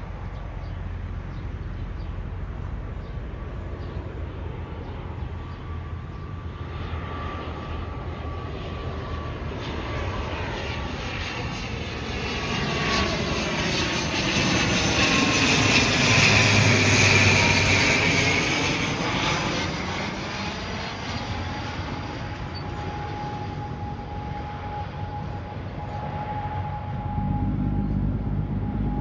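Jet airliner passing close by, its engine noise swelling to a peak about halfway through and then fading away, with a steady high whine running through it.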